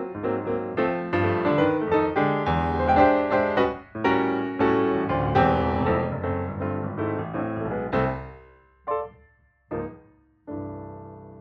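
Background piano music, a flowing run of notes that thins to a few separate chords near the end.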